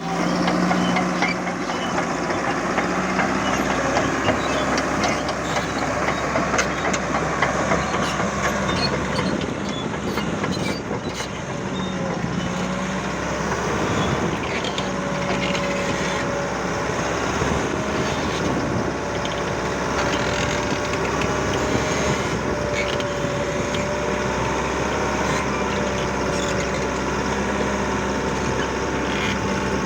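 Caterpillar D5K bulldozer's diesel engine running steadily, its pitch drifting slightly up and down, with light clanks and ticks throughout.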